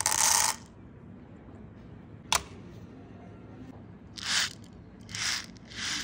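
No. 4 birdshot pellets from a 12-gauge shotshell pouring into a shallow metal tin lid, rattling densely for about half a second at the start. A single sharp click comes about two seconds in, then three short rattling swishes as the pellets roll across the tilted tin near the end.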